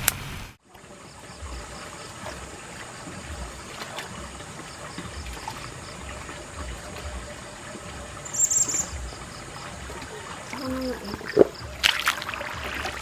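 Water trickling steadily, with a brief louder rustle or clatter near the end.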